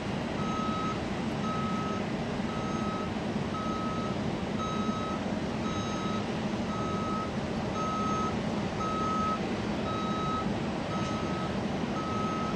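A vehicle's reversing alarm beeping steadily, one short high beep about every second, over a steady low rumble of background noise.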